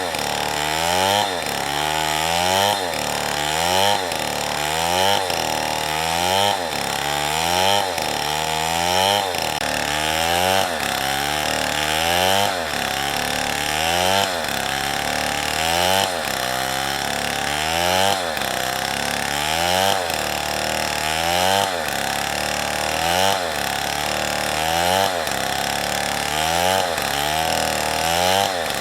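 Two-stroke chainsaw cutting through a tree. The engine pitch rises and falls in a steady rhythm, about once every one and a half seconds, as the chain loads up in the wood and frees again.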